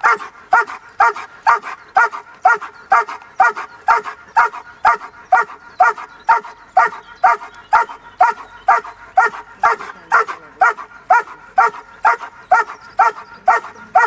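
Five-month-old German Shepherd puppy barking steadily and rhythmically, about two barks a second, at a helper hidden in a training blind: the bark-and-hold of protection work.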